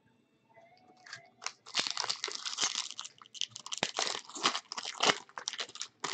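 Foil wrapper of a 2017 Bowman Baseball jumbo pack being torn open and crinkled by hand, a dense crackling that starts about two seconds in.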